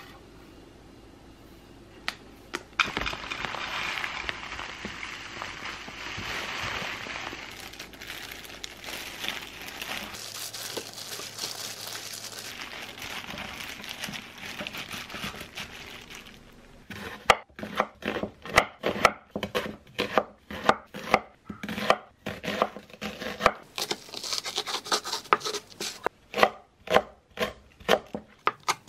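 A hand in a plastic glove mixing seasoned greens in a stainless steel tray, a steady crinkling rustle for about the first half. Then a kitchen knife slices green onion on a wooden cutting board: a steady run of sharp knocks, about two a second.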